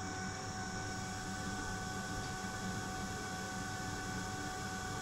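EBM-papst RG148/1200-3633 combustion fan of a Baymak Lectus 115 kW boiler, running steadily at its minimum speed: an even hum with a few thin, constant whining tones. The fan is running smoothly with its repaired, reprogrammed controller board.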